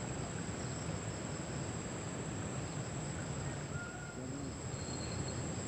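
Insects trilling steadily in a continuous high-pitched buzz, over a low, even background rumble.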